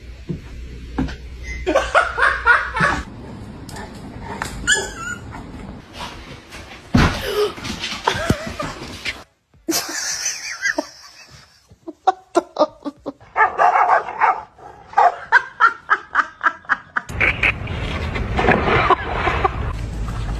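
A dog barking and people laughing, in several short clips with abrupt cuts between them.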